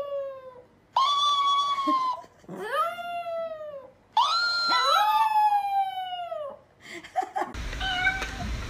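Chihuahua howling: a run of about four long wavering howls, each rising and then sliding down in pitch, with two howls overlapping briefly about five seconds in. Near the end the howling stops and a steady hiss with faint tones takes over.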